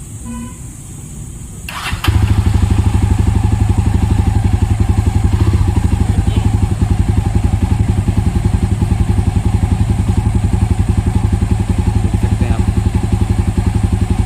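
A short electronic beep, then the Jawa 42 Bobber's 334 cc single-cylinder engine is started on the electric starter about two seconds in. It catches at once and settles into a steady, evenly pulsing idle through the exhaust.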